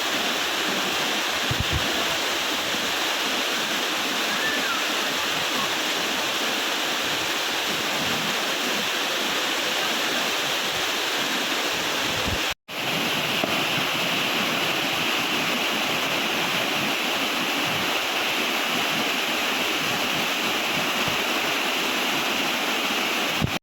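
Waterfall cascading into a rocky stream: a steady, even rush of falling water. It breaks off for an instant about halfway and picks up again with a slightly brighter tone.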